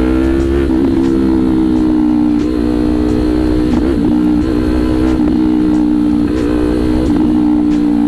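Sport motorcycle with an aftermarket SC Project exhaust canister running at steady cruising speed. It gives a loud, steady exhaust note that wavers slightly in pitch a few times with small throttle changes.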